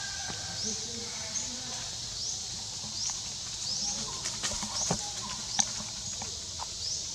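Forest ambience: a steady high insect drone with a short rising chirp repeating about once a second. A few sharp clicks come past the middle, the loudest about five and a half seconds in.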